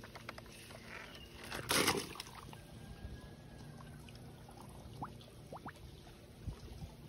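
A plastic toy monster truck splashes into a swimming pool in one short, loud splash about two seconds in, followed by faint water trickling.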